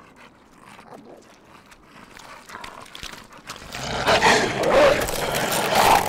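A pack of wolves snarling and growling as they tear at a carcass. It is faint at first and grows loud and rough from about four seconds in.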